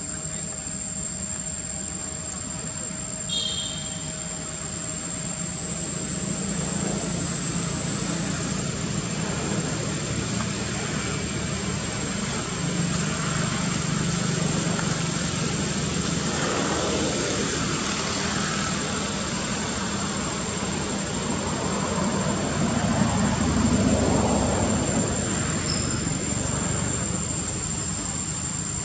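A motor vehicle engine running steadily, growing a little louder in the second half, under a constant thin high-pitched whine.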